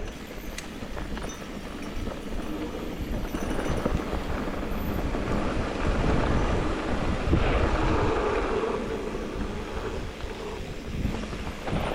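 Wind rushing over the microphone and mountain bike tyres rolling on a dirt trail, louder in the middle.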